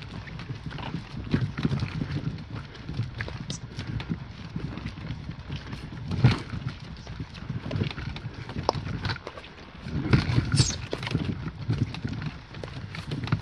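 Footsteps crunching on a rocky gravel trail while a loaded kayak on a small wheeled cart rattles and bumps over the stones behind, with a sharper knock about six seconds in.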